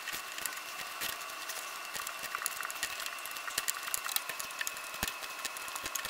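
Small plastic 5x5 Rubik's cube pieces clicking and clattering in irregular light taps as they are picked up and sorted by hand, over a steady hiss.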